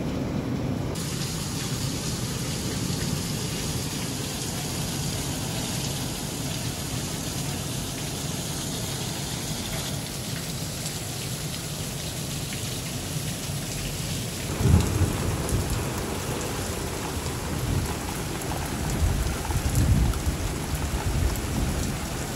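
Steady monsoon rain falling on desert ground, with a low rumble of thunder about fifteen seconds in and another around twenty seconds.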